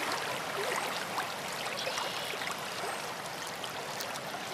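A steady rushing noise with faint scattered clicks.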